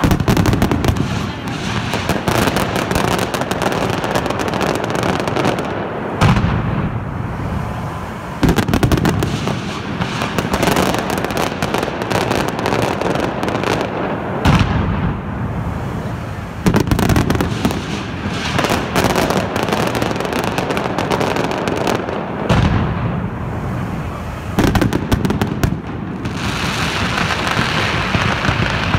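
Mascletà: masclet firecrackers going off in a dense, unbroken barrage of bangs that swells in surges every few seconds.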